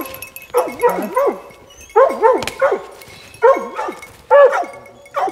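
Hunting hounds barking treed under a treed mountain lion: loud, repeated barks in quick clusters of two or three, about one cluster a second.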